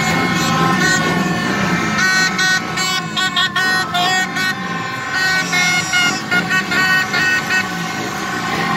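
Many motorbike horns honking at once over the hubbub of a crowd and motorbike engines. From about two seconds in, one horn sounds in a rapid run of short, repeated toots.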